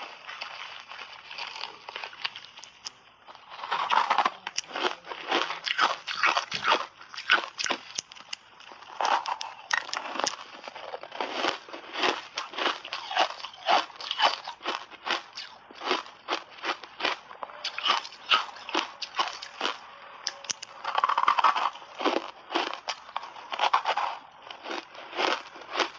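Ice chunks dusted in matcha powder being bitten and crunched between the teeth: a dense run of sharp cracks and crackles with a few louder bites, starting about three seconds in after a quieter moment.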